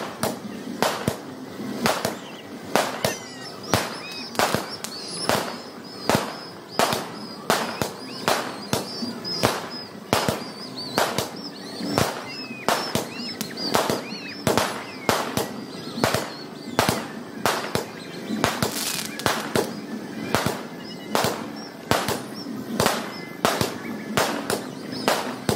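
Fireworks going off in a rapid, fairly even run of sharp bangs, about two to three a second, with no let-up.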